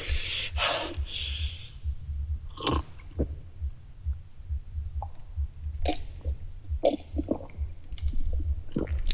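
A person eating close to the microphone: chewing with wet mouth clicks and smacks scattered through, and a longer noisy sound in the first two seconds.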